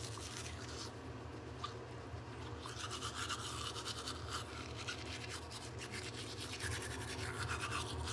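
Manual toothbrush scrubbing teeth with charcoal and lemon-juice paste: rapid back-and-forth brushing strokes that grow busier after a few seconds.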